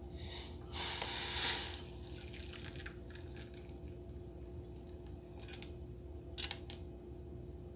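Hot tamarind water poured from a stainless steel saucepan through a fine-mesh strainer into a glass bowl: a splashing pour about a second in, then quieter trickling as the thick liquid and pulp run through the mesh. There are a couple of short clicks near the end, over a faint steady hum.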